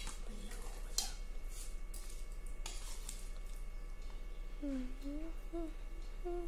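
A few sharp clicks of a metal spoon against steel plates as food is served. About two-thirds of the way in, a person starts humming a few gliding notes.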